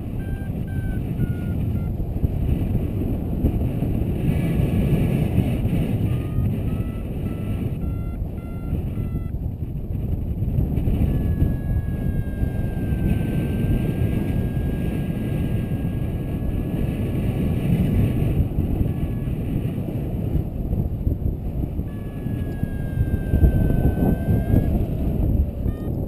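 Wind rushing over the microphone during paraglider flight, with a paragliding variometer's electronic tone above it. The tone beeps in short pulses at times and holds longer at others, its pitch drifting up and down.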